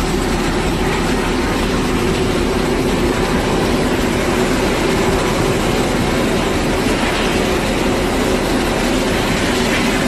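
Ship's engines and deck machinery running with a steady, unbroken rumble.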